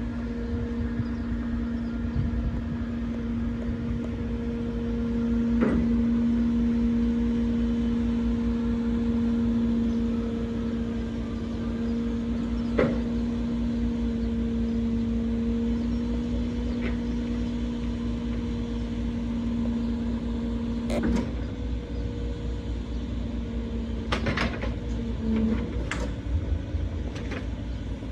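Truck-mounted loader crane at work: a steady hydraulic hum from the engine-driven pump over the truck's engine rumble, with a few sharp metallic knocks. The hum cuts off about three-quarters of the way through, just after a knock.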